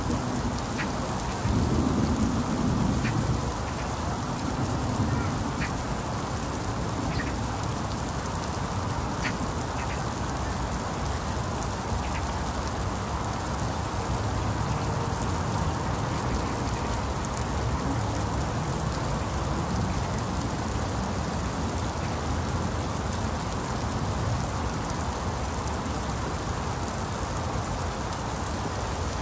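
Heavy rain falling steadily on roofs and a wet road. A louder low sound comes about two seconds in, and a few short, sharp ticks come in the first ten seconds.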